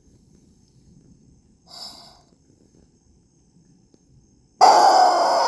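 Toy rubber chicken squeezed: a short wheezy squeak about two seconds in, then a loud, harsh squawk starting near the end.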